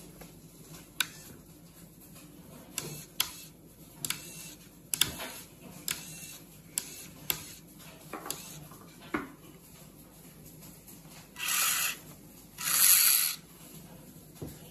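A series of scattered sharp clicks and taps, then two short bursts of hiss near the end, the second the loudest.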